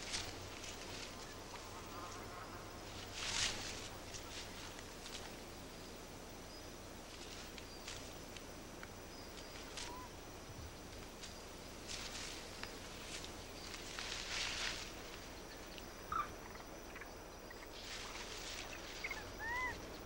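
Faint forest ambience: a steady high insect hum with several short hissing bursts, and a few brief arched chirps, two of them near the end.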